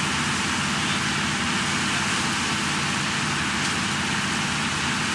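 Tour boat's engine running steadily at cruise: a low, even hum under a loud, steady rushing noise.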